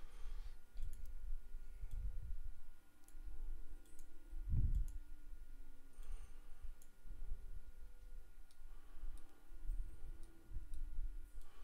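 Scattered computer mouse clicks at a desk, with irregular low thuds; the heaviest thud comes about four and a half seconds in.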